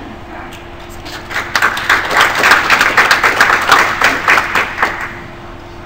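Audience applauding: a patter of many hands clapping that starts about a second in, swells, and dies away near the end.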